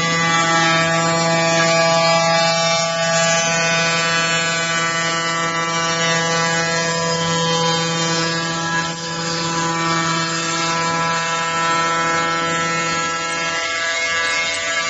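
5-axis CNC router running with a steady high-pitched spindle whine as it mills a curved solid-wood part, with the hiss of the cut and flying chips underneath.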